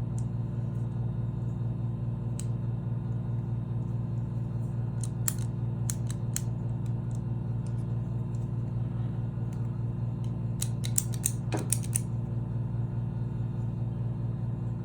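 Small metal parts of a door-handle lock being handled, giving scattered light clicks and taps with a quick run of clicks near the end. A steady low mechanical hum runs underneath.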